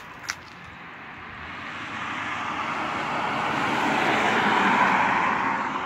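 A car driving past on the street: its tyre and engine noise swells over several seconds, peaks near the end and begins to fade. A single sharp click comes just after the start.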